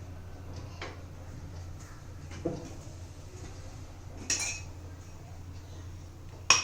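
Kitchenware being handled, a few separate clinks and knocks of dishes and a pan, the sharpest just before the end.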